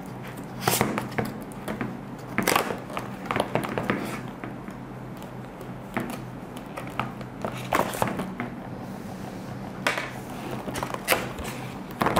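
A knife cutting and prying open a clear plastic blister pack: irregular scrapes, crackles and taps of the blade against the stiff plastic, with the pack crinkling as it is handled. A faint low hum runs underneath.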